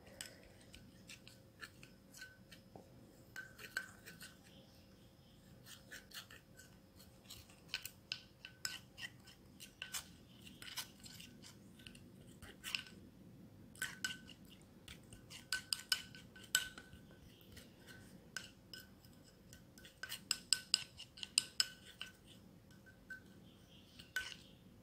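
White plastic fork stirring a thick paste of chickpea flour and rose water in a ceramic bowl: irregular light clicks and scrapes of the fork against the bowl, coming in quick runs.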